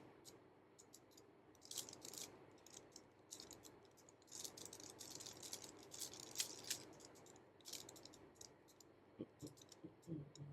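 Rubik's Cube being turned by hand: faint clicking and rattling of its plastic layers, in short runs of quick turns with pauses between.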